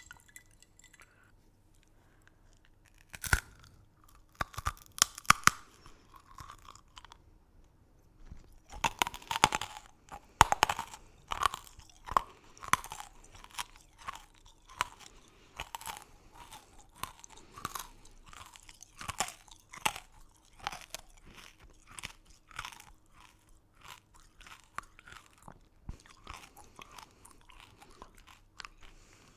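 Close-miked crunching and chewing of hard, crunchy candy. After a quiet start, a sharp bite cracks about three seconds in and a few more follow. From about nine seconds there is dense crunching that thins out toward the end.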